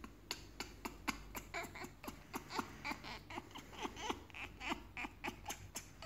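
African grey parrot clicking and gnawing with its beak on a hand-held wooden perch stick: a quick run of sharp clicks, about four a second, with short soft squeaks mixed in.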